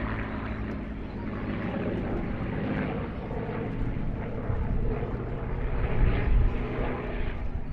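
Piston-engined WWII warbird flying past, its propeller engine drone swelling to its loudest about six seconds in.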